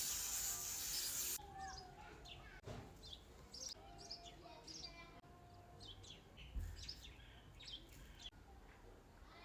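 A short hiss lasting about a second and a half, then faint scattered bird chirps and tweets.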